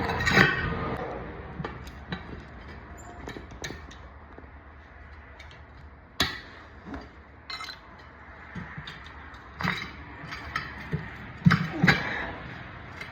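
Metal hand tools clinking and knocking as they work on a small ATV wheel and tire, in scattered sharp clicks with a louder knock about six seconds in and a cluster near the end.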